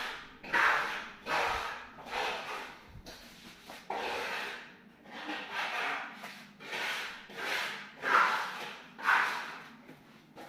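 A hand tool scraping over a hard surface in repeated strokes, about one to two a second and unevenly spaced.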